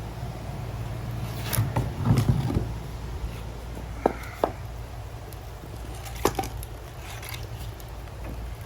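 Split firewood logs knocking together as they are loaded into a barbecue smoker's firebox to raise the heat: a cluster of heavy wooden knocks about two seconds in, then a few sharper clinks.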